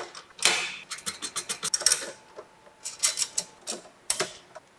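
Steel stand braces and hardware being handled: bursts of small metallic clicks and rattles as a nut is threaded onto a bolt by hand.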